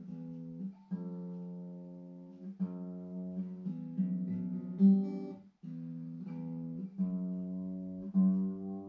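Acoustic guitar being played, a new chord struck and left to ring about every second or so. There is a brief break a little past halfway.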